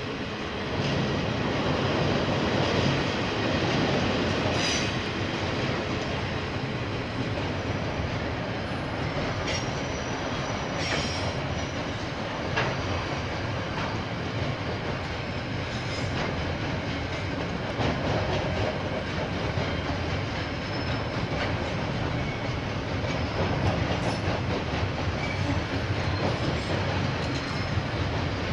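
KiwiRail train passing close by: a steady rolling rumble of wheels on the rails that swells about a second in and keeps on, with scattered sharp clicks over the rail joints and a few short high wheel squeals.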